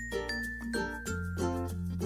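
Light background music: a steady bass under quick repeated notes, with a high melody line stepping down in pitch.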